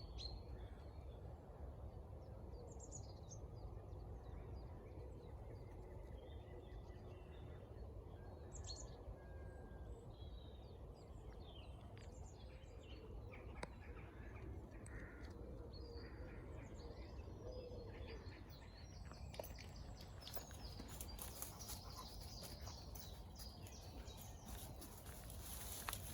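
Wild birds chirping and calling here and there over a steady low outdoor rumble. About three-quarters of the way in, a dense crackling and rustling of footsteps on dry ground joins in and grows louder toward the end.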